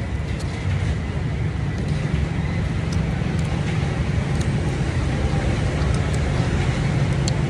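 Steady low rumble of road traffic, with a few faint light clicks.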